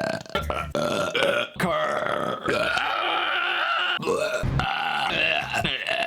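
A man burping loudly: about six long, pitched belches one right after another, each cut off abruptly into the next.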